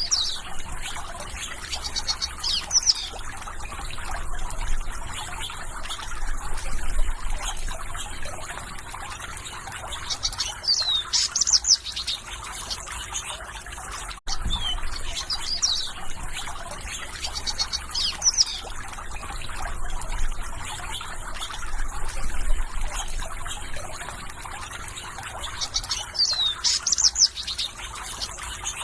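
Small birds chirping in short, high bursts over a steady trickle and splash of water from a bird bath. The sound drops out briefly about halfway through.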